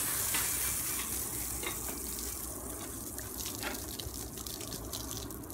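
Garden hose spraying water over a bicycle: a steady hiss of spray with water splashing off the frame and wheels. It comes on suddenly and eases off a little as it goes.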